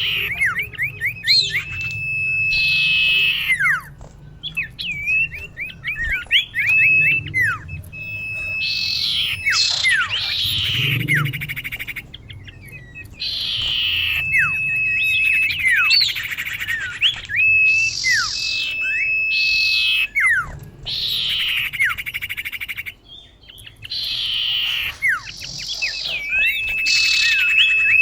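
Female common iora (cipoh) calling for a male. The same phrase repeats every three to four seconds: a short harsh note, a quick run of sweeping chirps, one long steady whistle, then a few slurred falling notes.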